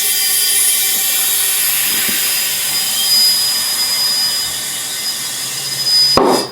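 Compressed air hissing steadily into a small tubeless power-equipment tire through an air chuck as the bead is being seated. The hiss stops with a short, loud burst near the end.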